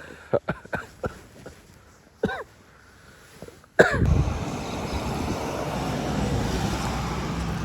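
A few light knocks, then, starting abruptly about four seconds in, a steady engine and traffic rumble.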